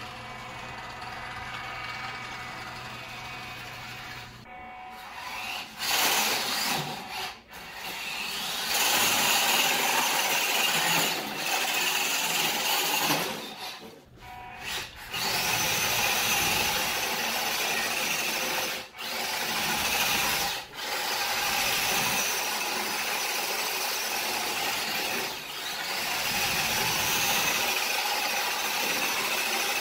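WPL D12 RC kei truck's electric motor and gears whining under throttle, with the tyres scrubbing on a hardwood floor as it drifts and spins. The whine comes in long stretches broken by brief lifts of the throttle, after a quieter first few seconds.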